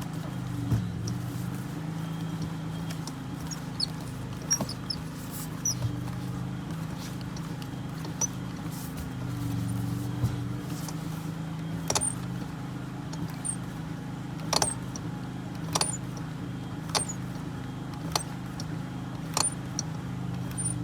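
Sharp knocks from a Toyota Windom 10's steering column, coming irregularly at first and then about every second and a bit in the second half. They sound over the steady hum of the car's running engine. The knocking is the sign of play or wear in the steering column.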